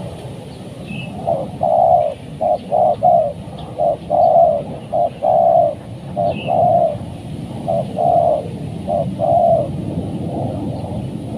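Spotted dove cooing: soft low coos in repeated phrases of two to four notes, with short pauses between the phrases.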